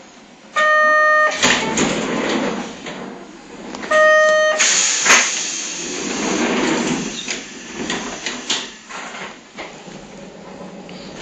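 Hankai Tramway streetcar rattling and clattering as it runs, its body shaking hard over the track. Two short, loud, steady horn blasts sound, a few seconds apart.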